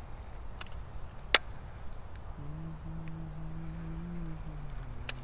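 Insects chirping in short, evenly spaced high pulses over a quiet background. A single sharp click comes about a second in, and a low steady hum starts about halfway through.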